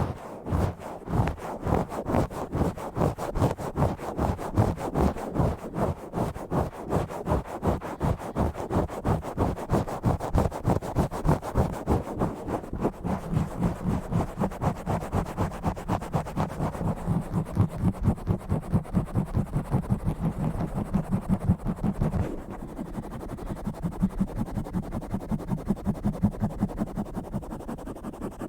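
Fast, rough scratching and rubbing right on an uncovered microphone, in a quick even rhythm of about four to five strokes a second. About two-thirds of the way in, the strokes become softer and duller.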